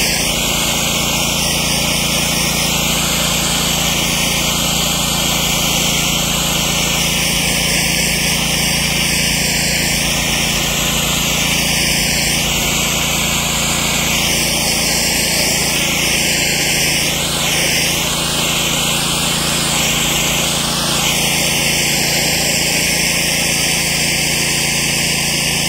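Water rushing steadily from a hose opened at a ball valve and spraying onto concrete, its hiss shifting slowly as the stream is moved about, over a steady low hum of a motor running.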